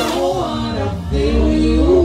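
A live band playing, with a singer's voice over a deep, strong bass.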